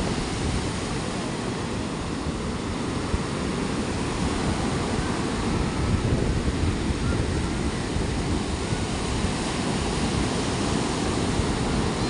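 Ocean surf breaking and washing up a sandy beach, a continuous rushing noise that swells a little midway, with wind buffeting the microphone.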